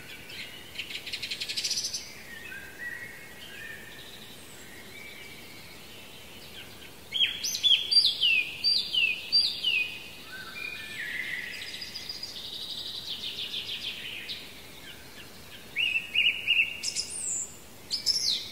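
Several songbirds singing in the open. A fast trill comes about a second in, then a loud run of about five falling whistled notes at around seven seconds, and more phrases near the end, over a faint steady hiss.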